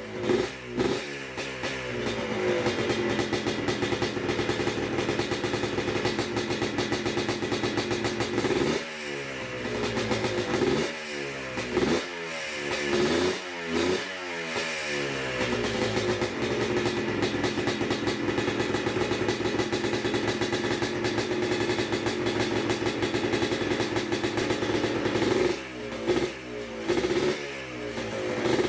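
Yamaha Blaster's 195cc two-stroke single running through an FMF Fatty pipe and Powercore 2 silencer, blipped at first and then held at a steady high rev for several seconds. About nine seconds in it is blipped repeatedly, the pitch dropping after each blip, then held steady again, with more throttle blips near the end.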